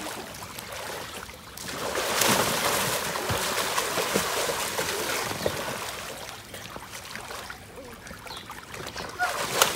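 Water splashing and sloshing in an inflatable paddling pool as children move and swim through it. The splashing is heaviest about two seconds in, then settles to softer sloshing.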